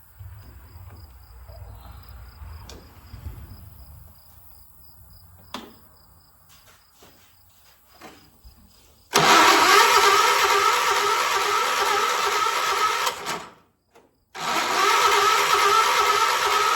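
A 1976 John Deere 300 lawn tractor being cranked. A few faint clicks come first, then about nine seconds in a loud steady mechanical whirring starts. It cuts out briefly near the end and starts again. The owner puts the hard start down to a dead battery.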